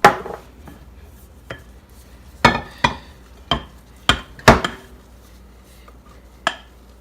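Kitchenware being handled: a series of sharp clinks and knocks, about seven, as a pan and utensils strike one another, several clustered in the middle.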